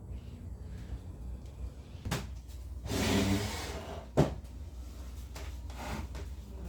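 Household handling sounds: a knock, then a sliding scrape lasting under a second, then a sharp knock, the loudest, and a softer knock later, like a cupboard or drawer being slid and shut.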